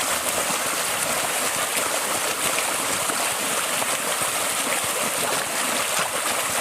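Running stream water rushing and gurgling steadily.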